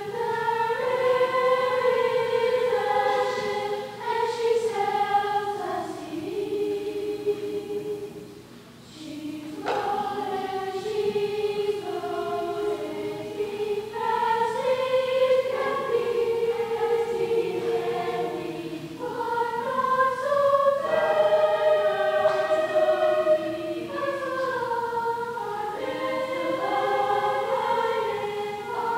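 Middle-school chorus singing held notes in several voice parts, with a short break between phrases about nine seconds in.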